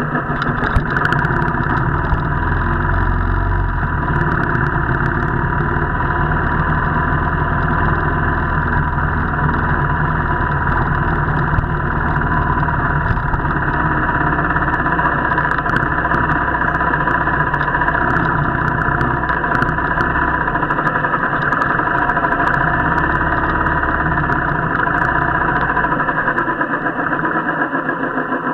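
Royal Enfield motorcycle engine running steadily, heard muffled.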